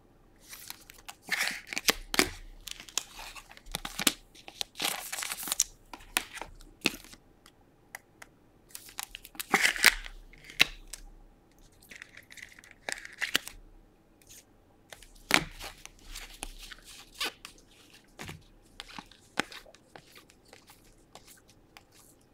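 Trading card packs being torn open and their wrappers crinkled, with cards being shuffled and handled. The sound comes as scattered short rustles and clicks with brief quiet gaps.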